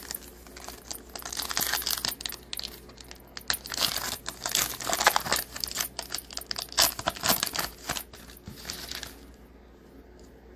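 Foil wrapper of a trading-card pack crinkling and tearing as it is opened, with dense irregular crackles that die down about nine seconds in.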